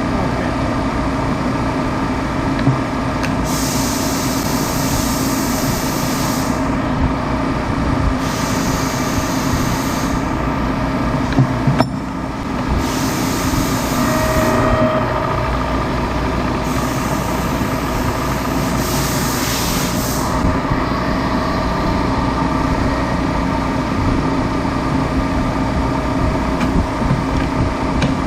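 Machinery running steadily with a low hum and several steady overtones. Five bursts of high hiss, each one to three seconds long, come and go over the first two-thirds, and there is a single sharp click midway.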